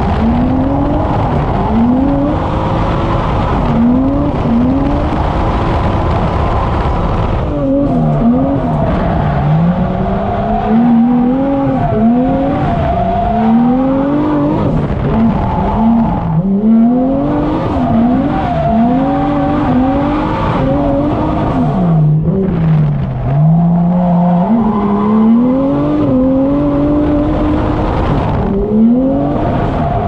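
Swapped-in Toyota 1JZ VVTi 2.5-litre inline-six in a Nissan 240SX S13, heard from inside the cabin while drifting: the revs climb and drop back over and over, every second or two.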